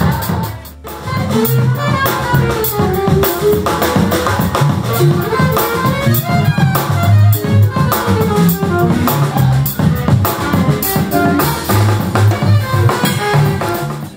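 Live band music: a drum kit keeps a steady groove under a hybrid eight-string guitar, with a gliding melody line over the top. The sound drops out briefly about a second in, then the groove carries on.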